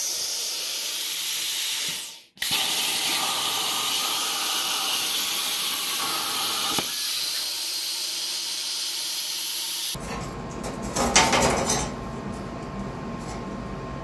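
CNC plasma cutter torch cutting steel plate: a loud, steady hiss of the plasma arc and air, briefly interrupted once. After about ten seconds the hiss stops, and a few metal knocks follow.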